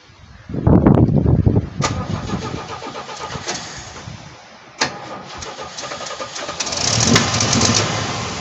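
C10 pickup's engine being cranked and catching, running unevenly with two sharp clicks along the way and a swell near the end. It runs only while the key is held in the start position, not in run.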